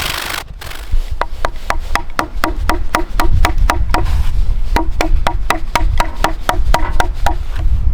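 Rapid, evenly paced strikes of a hand tool on a wooden log, about four short knocks a second, as a notch is cut for a wooden joint.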